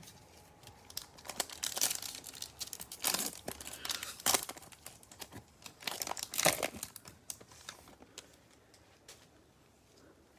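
A foil trading-card pack wrapper crinkling and tearing as it is opened by hand, in a run of irregular crackles that dies down after about eight seconds.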